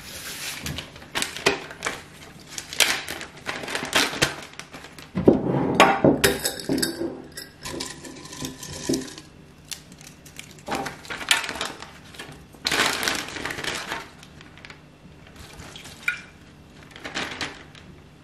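Hands handling kitchenware and dried mushrooms at a table: a series of short clinks, knocks and rustles from a metal baking tray, a clip-top glass jar and dried wood ear fungus. Longer rustling stretches come about five seconds in and again around thirteen seconds.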